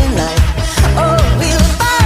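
Pop-rock song playing: a sung vocal melody over a steady, driving beat.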